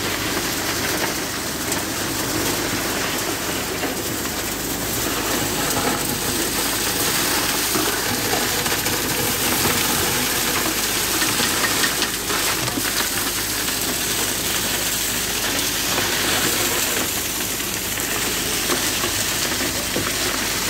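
Concrete pump running steadily while wet concrete pours from its hose into foundation formwork, a continuous rushing noise with a low machine hum beneath it.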